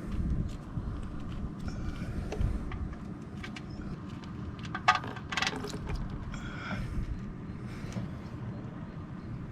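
Engine oil running and trickling, with scattered light clicks and one sharper clink about five seconds in.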